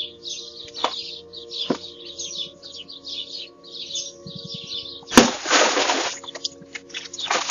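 Small birds chirping over and over, two or three chirps a second. About five seconds in, a sharp crack and a loud rushing crash lasting about a second cut across them, and another rush comes near the end.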